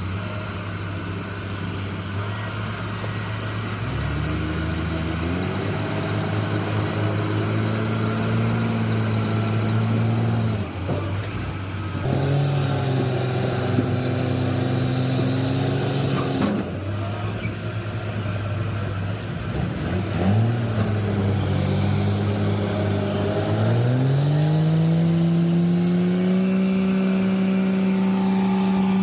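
Heavy diesel engine working under load, revving up and dropping back three times: its pitch climbs about four seconds in, eases off around ten seconds, climbs again at twelve, falls near sixteen, then rises over several seconds from about twenty and holds high near the end.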